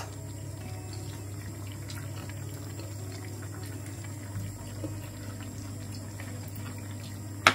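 Coconut chickpea curry simmering in a wide pan: a soft, steady bubbling over a low steady hum.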